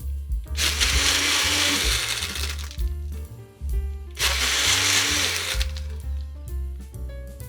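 TENKER 900W personal blender's motor and blades running in two bursts of about two seconds each, starting and stopping as the cup is pressed onto the base and released. Background music plays throughout.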